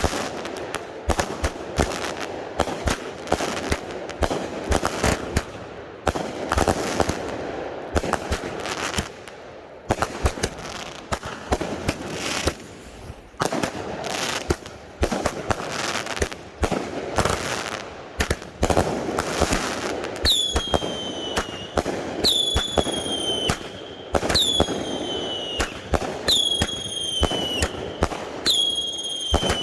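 Consumer firework cakes going off: a dense string of sharp bangs and crackling shots. About two-thirds of the way in, shrill whistles join, one roughly every two seconds, each dipping slightly in pitch as it starts.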